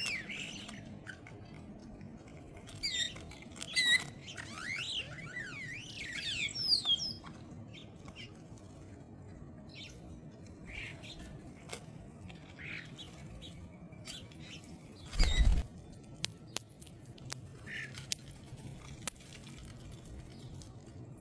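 Birds calling at a feeder: a burst of harsh, quickly sweeping squawks and chirps about three to seven seconds in, then sparser chirps. A single loud thump comes about fifteen seconds in, and scattered light clicks follow.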